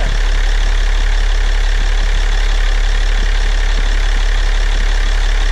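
The 6.7 L Cummins inline-six turbo diesel of a 2015 Ram 2500 idling steadily while it warms up, heard close up at the front of the engine. It is running on a newly fitted replacement water pump that sounds much better than the old one.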